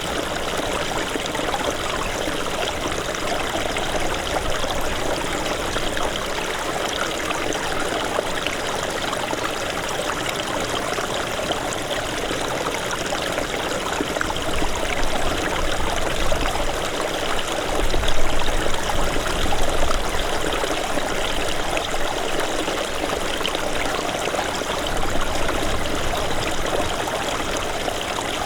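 Small snowmelt stream running and babbling steadily. There are brief low rumbles about two-thirds of the way through.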